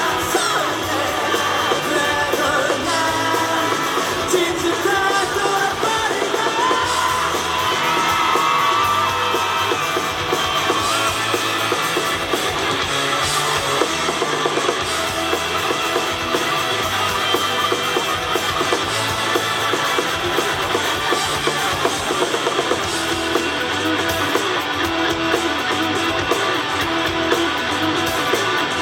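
Live rock band performance: a male singer's voice over electric guitars and a drum kit.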